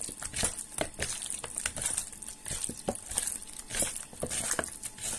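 A bare hand kneading and squeezing raw chicken pieces in a wet curd-and-spice marinade in a bowl: a run of irregular short squishing and smacking sounds.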